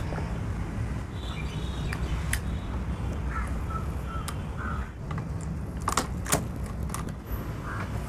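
Plastic and metal hose fittings being screwed and snapped onto an electric pressure washer's water inlet and outlet: a few scattered sharp clicks and taps over a steady low background rumble.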